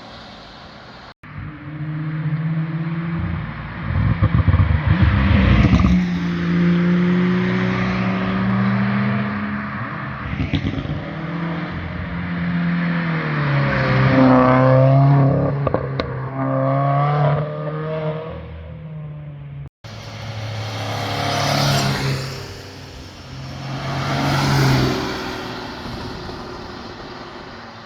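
Several sports cars drive past one after another, their engines revving hard, with the pitch climbing and dropping back as they shift gears. The loudest pass comes about four to six seconds in. The sound cuts off abruptly twice between passes.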